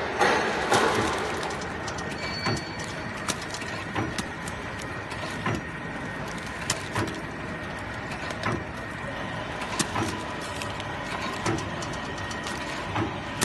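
Automatic slime extruding and packing machine running, a steady mechanical din with a faint steady whine and a short clack about every one and a half seconds as it cycles.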